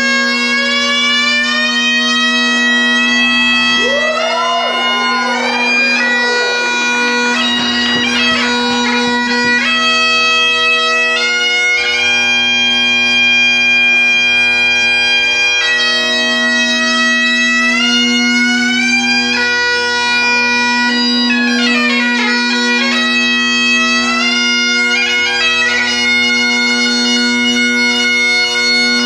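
Great Highland bagpipe played solo: the drones sound steadily while the chanter carries a melody over them, moving from note to note with quick grace-note flourishes.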